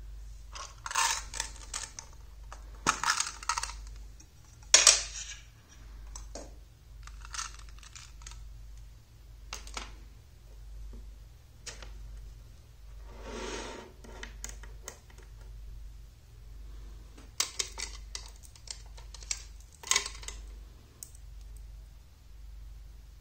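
Small magnetic rods and steel balls clicking and clinking as they snap together and are pulled apart, in clusters of sharp clicks every few seconds with a brief rattle near the middle, over a low steady hum.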